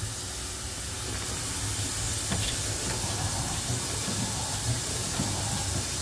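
Steady hiss of steam from a fired fire-tube steam boiler at working pressure, with a low rumble underneath.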